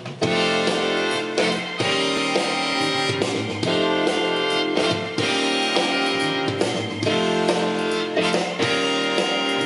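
Recorded music played through a Luxman CL-350 preamplifier and McIntosh MC7270 power amplifier into loudspeakers: the instrumental opening of a Mandarin song, before the vocals, with a steady beat.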